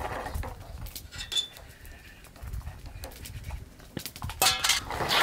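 Light clinks and knocks of a small metal camp bowl and utensil being handled, with a short high-pitched call about four seconds in.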